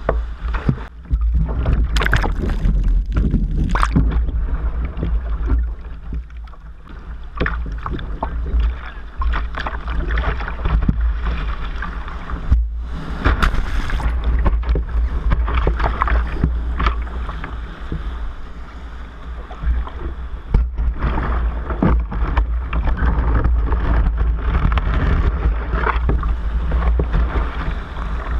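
Surf and whitewater churning and splashing around a sea kayak's bow, with a steady low rumble beneath. About halfway through, a wave breaks over the bow and washes over the microphone.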